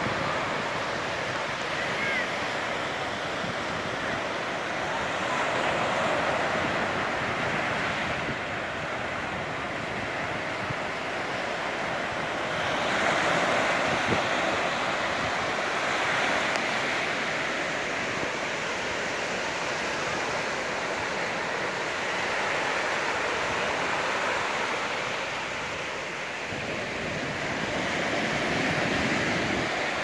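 Small sea waves breaking and washing up a sandy beach: a steady surf hiss that swells and eases every few seconds.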